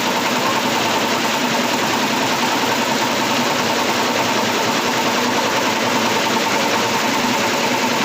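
Computerized embroidery machine running steadily, its needle stitching at a fast, even rate.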